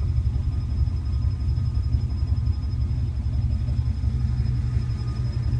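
1981 Pontiac Turbo Trans Am's turbocharged 301 V8 idling warm, a steady low rumble with a faint high whistle above it. The idle is rough, enough that the owner says the whole car shakes.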